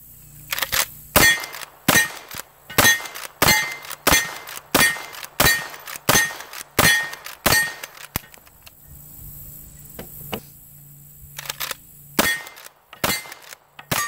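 Marlin 1894 lever-action carbine, chambered in .38 Special/.357 Magnum, fired rapidly: about ten shots roughly two-thirds of a second apart, with the lever clacking between them as it cycles and extracts each round with its new Shur Claw extractor. A few quieter sharp clacks come near the end.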